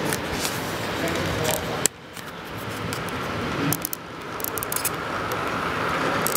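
HO-scale model freight train of double-stack container cars rolling past close by on curved track, its metal wheels clicking and rattling over the rails. The level drops abruptly about two seconds in, then builds again.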